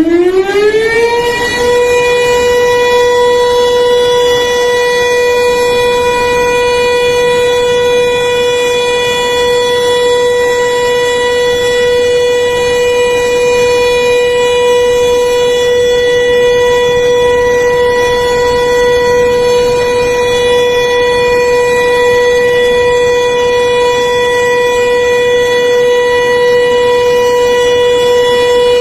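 Floodgate flood-warning siren, rising in pitch for about the first second and a half, then holding one loud, steady tone. It is sounded as an early warning that the Cisadane River has reached alert level 3 (Siaga 3).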